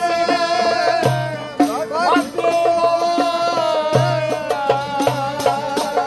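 Clarinet playing a long, ornamented melody with bending notes over a band, with steady hand-drum strikes and low bass notes: Turkish fasıl-style folk music.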